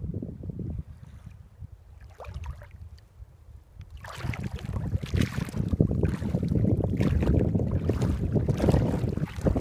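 Wind buffeting the phone's microphone, rumbling and gusting in irregular bursts, much louder from about four seconds in.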